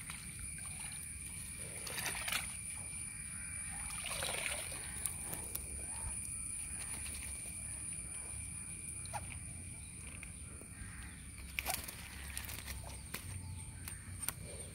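Outdoor ambience on a muddy bank by the water: a steady, thin high-pitched whine runs throughout. A few brief rustles and knocks come about two seconds in, near the middle, and again late on, from handling among dry leaves and the net.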